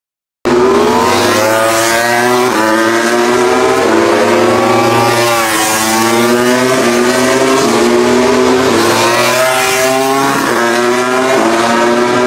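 MotoGP racing motorcycle engines at high revs, starting abruptly about half a second in. The pitch climbs and drops in steps with gear changes, dipping and climbing again twice.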